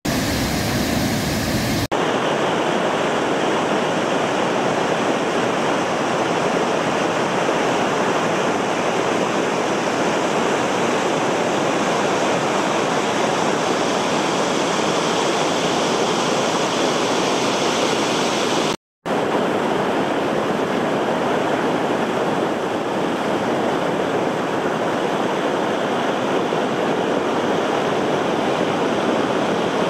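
Waterfall and whitewater cascades rushing steadily, a dense continuous roar of falling water. The sound cuts out for a moment about two-thirds of the way through.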